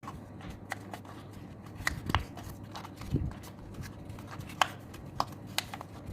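Coloured paper being handled and pressed: irregular light clicks and crinkles, with a few soft low thumps.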